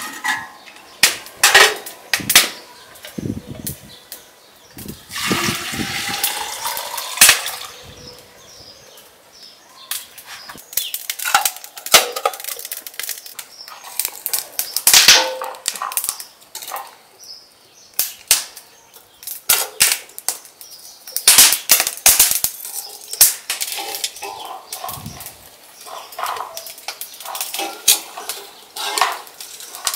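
Wood fire crackling in an open metal grill, with sharp, irregular pops and cracks and metal clinks as a poker works the burning wood. A brief rushing hiss comes about five seconds in.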